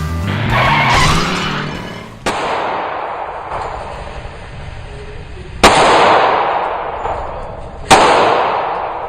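Glock 17 9mm pistol fired three times, a few seconds apart, each shot a sudden crack followed by a long ringing decay. Music ends about two seconds in, just before the first shot.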